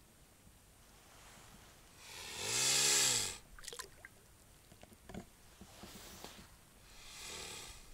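Mute swan giving one rough, breathy call about two seconds in, lasting about a second and rising then falling in pitch, followed by a few small water splashes as it moves in the shallows and a softer breathy hiss near the end.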